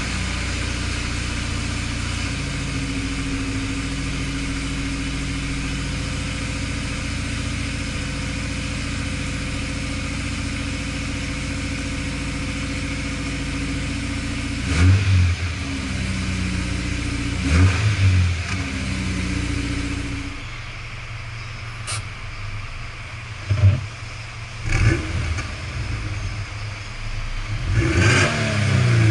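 Subaru BRZ's flat-four boxer engine through a Blitz NUR-SPEC C-Ti titanium exhaust, idling steadily, then revved in a few short throttle blips that rise and fall back to idle, starting about halfway through.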